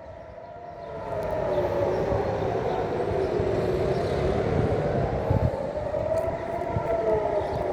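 Civil defense air-raid sirens sounding a rising-and-falling wail in a Home Front Command drill test, swelling in about a second in and wavering slowly up and down in pitch, with a low rumble beneath.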